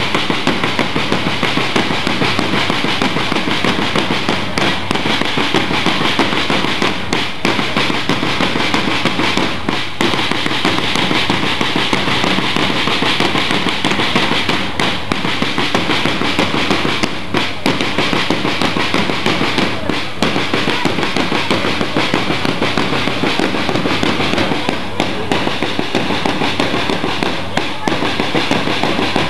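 Band music dominated by many drums beating in a dense, rapid rhythm without a break.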